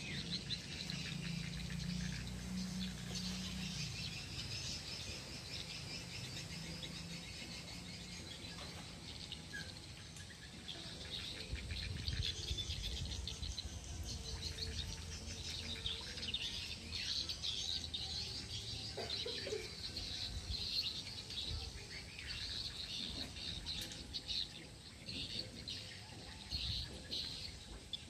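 Outdoor chorus of birds chirping and insects trilling, a continuous high chatter of rapid chirps, with a low rumble at the start and again about twelve seconds in.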